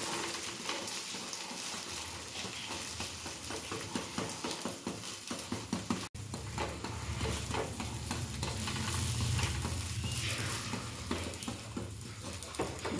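Beaten egg frying under a paratha in a non-stick frying pan, sizzling steadily, with a metal spatula clicking and scraping on the pan as the paratha is pressed down. The sound drops out for an instant about six seconds in, and a low hum runs under the sizzle after that.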